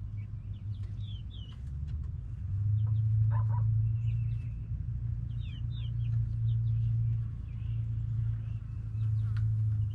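Backyard chickens with one brief cluck-like call and scattered short, high chirps, over a steady low rumble that grows louder about two and a half seconds in and stays the loudest sound.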